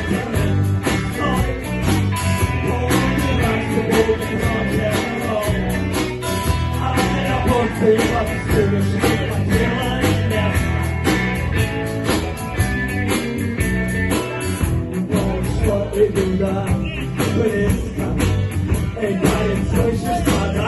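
A blues-rock band playing a song with a sung vocal over guitar and a steady drum beat.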